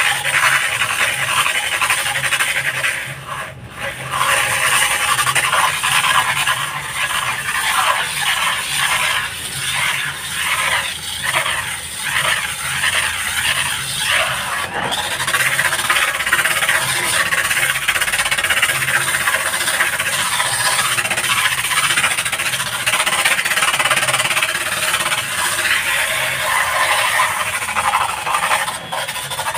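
Electric drill driving a zirconia flap sanding disc, grinding against a painted concrete wall with a steady, high-pitched scraping whine. The sound drops away briefly three times.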